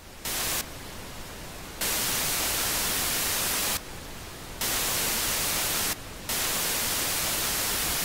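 Television static hiss from an old CRT set, jumping between a louder and a softer level every second or two.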